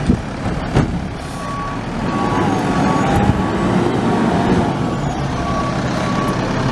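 Garbage truck engine running, with its backup alarm beeping in a repeating pattern. Two sharp knocks sound in the first second.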